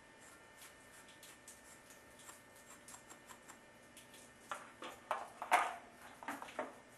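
A wire brush scrubbing metal plumbing parts clean for soldering. Light ticks and scrapes give way, in the last few seconds, to a run of louder, quick scratchy strokes.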